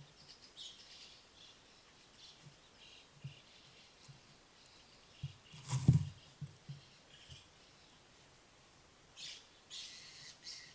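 Ezo red fox kit hiccuping: short, low hics at irregular intervals, with one much louder, sharper one about six seconds in. Small birds chirp over it, most near the start and in the last two seconds.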